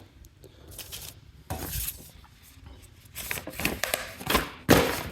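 Paper and packaging being handled: irregular rustling and scraping, with several louder rustles in the second half.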